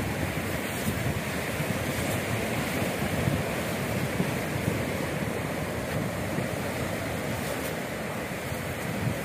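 Small waves washing steadily onto a sand and coral-rubble shore, with wind on the microphone.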